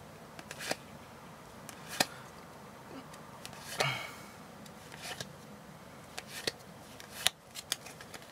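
Warhammer Underworlds game cards being handled and sorted by hand: scattered short clicks and snaps as the cards slide against each other and are pulled from the stack, loudest about two seconds in and again a little past seven seconds.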